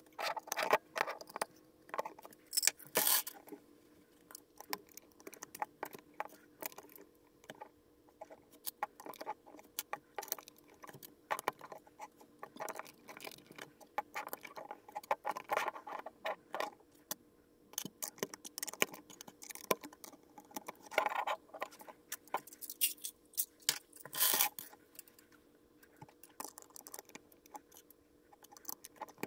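Plastic LEGO bricks clicking and rattling as they are pressed onto a build and handled among loose pieces on a tabletop: irregular snaps and clatters, with a few louder bursts of rattling.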